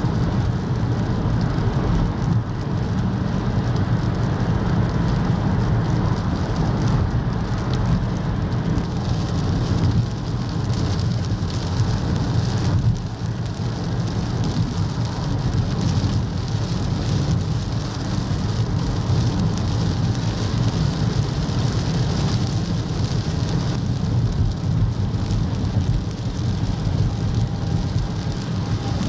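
Steady rush of heavy rain on a car driving a wet highway, with low tyre and road rumble heard through the windshield.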